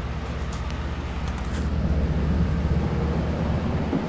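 Steady hum and rush of air from a small room's fans and air-conditioning equipment, with a few faint clicks in the first couple of seconds.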